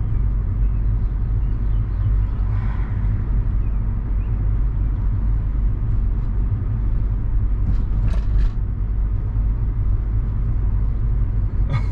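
Steady low rumble of a car's engine and road noise heard from inside the moving car's cabin, with a brief faint click about eight seconds in.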